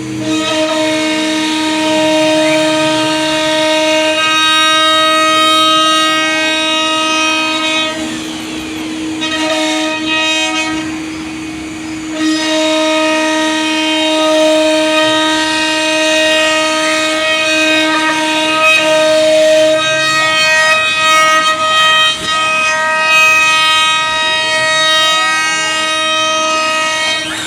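CNC wood router running: a steady, high spindle whine, with the router's motors sliding up and down in pitch as the head moves through the pattern. The higher part of the whine drops away twice, about a third of the way in.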